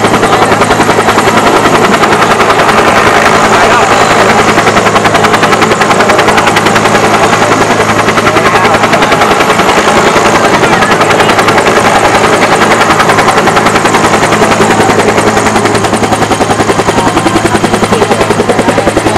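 A Bell UH-1 Huey-type military helicopter runs on the ground with its two-bladed main rotor turning fast, giving a loud, steady, rhythmic blade beat over the turbine's hum.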